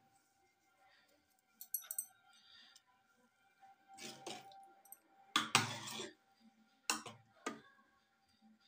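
A metal ladle stirs a thick dal and potato curry in an aluminium pressure cooker. It scrapes and knocks against the pot a few times, and the loudest scrape comes a little past halfway.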